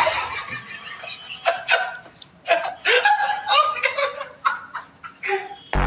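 A person laughing in short bursts of snickers and chuckles, with a sudden loud blast of noise near the end.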